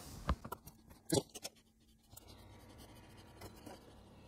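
Faint handling sounds from hands working on a small circuit board with a soldering iron and solder: a few light clicks and taps, the sharpest about a second in, with a soft scratching, then little more than a faint background hum.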